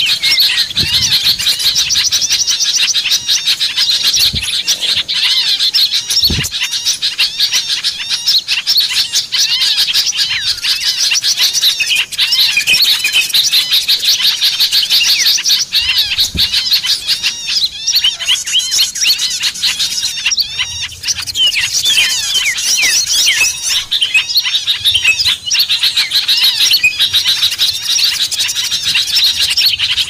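Bird-lure recording: a dense chorus of many small songbirds chirping and trilling over one another without pause. It is billed as a mix of bulbuls (kutilang) and flycatchers (sikatan), played to draw wild birds in.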